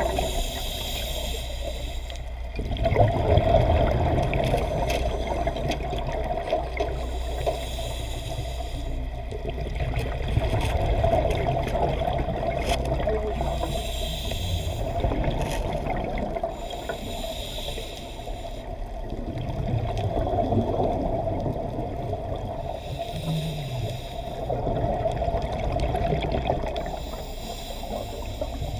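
Scuba diver's regulator breathing underwater: exhaled bubbles rushing in slow swells every several seconds, with quieter gaps between breaths.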